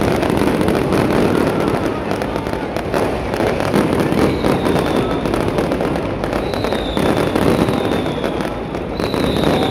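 Dense aerial fireworks barrage: many shells bursting at once in a continuous rapid crackling and popping, with a few faint high whistles.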